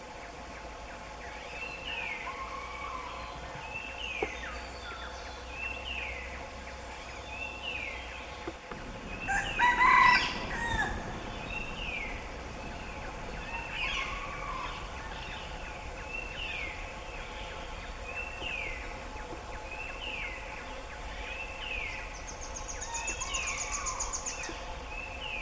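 Forest birds calling: a short falling chirp repeats about every second and a half, with a louder crowing call about ten seconds in. A faint high buzz comes in near the end.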